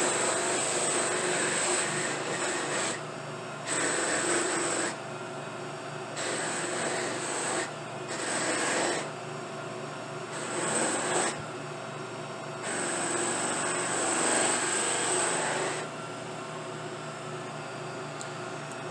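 Sandpaper rubbing by hand on a dyed briar pipe bowl, in spells of one to three seconds with short pauses, to sand back dye that has collected where the grain is open. A steady motor hum from the running buffing wheels lies underneath.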